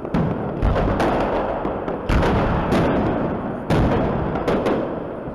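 Aerial fireworks shells bursting: sharp bangs about every half second to second and a half, each trailing off in a rolling, echoing rumble, with the loudest near the start, about two seconds in and near four seconds in.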